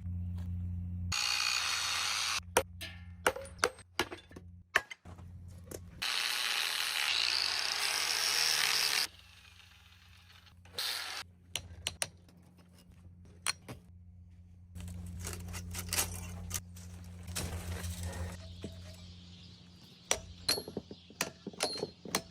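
Power tool running in two bursts of a few seconds each, about a second in and again about six seconds in, with many sharp metal clanks and knocks between and after, as an electric motor is taken apart for scrap.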